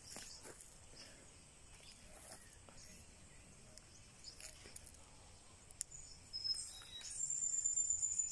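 Quiet outdoor ambience with faint scattered rustles and clicks. About seven seconds in, a high, thin chirping call starts and holds, louder than anything before it.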